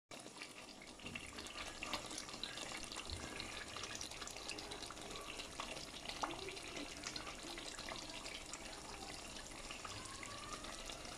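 Spinach and chicken curry simmering in a pot: a faint, steady bubbling with many small pops.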